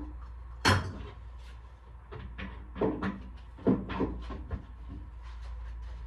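A series of sharp knocks and clunks of things being handled: one loud knock about a second in, then smaller groups of clunks around three and four seconds, over a low steady hum.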